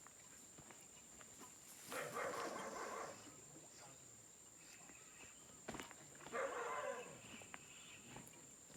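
An animal calling twice, each call about a second long and about four seconds apart.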